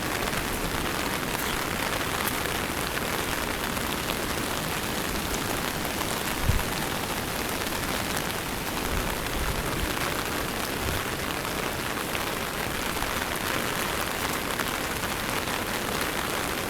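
Steady rain falling, with one short low thump about six and a half seconds in.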